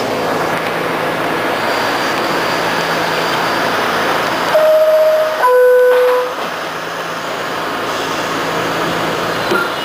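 Inside a Westinghouse R68 subway car standing in a station: a steady hum from the car's equipment. About halfway through, the two-note falling door-closing chime sounds, followed by a short knock near the end.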